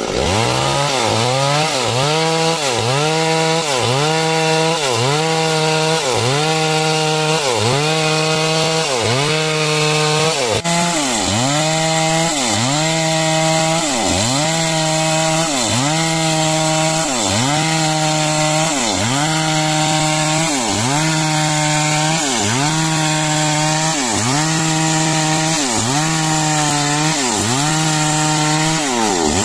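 Two-stroke chainsaw cutting through timber. The engine pitch dips under load and recovers about once a second as the chain bites into the wood.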